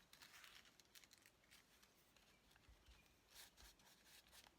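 Near silence with faint, brief rustles of paper being handled, twice.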